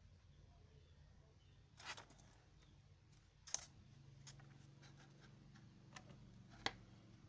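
A kitten playing: faint scattered taps and clicks, with a brief rustle about two seconds in, over a low steady hum.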